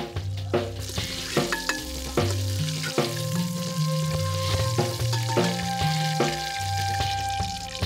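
Hot cooking oil sizzling in an aluminium pot as tomato and pepper pieces are added, the hiss setting in about a second in. Background music with a stepping bass line and a regular beat plays over it.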